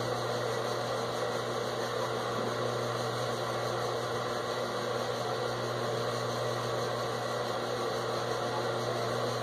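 Steady low electrical hum with a whirring hiss over it, unchanging throughout.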